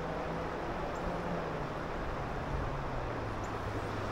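Steady rush of shallow river current around a wader, with wind on the microphone, and a faint low drone underneath that slowly falls in pitch.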